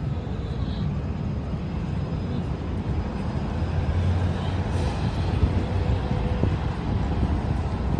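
City street ambience: a steady low rumble of vehicle traffic, swelling slightly around the middle.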